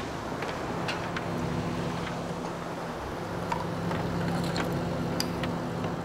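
A small fishing boat's engine running steadily, with a few light clicks.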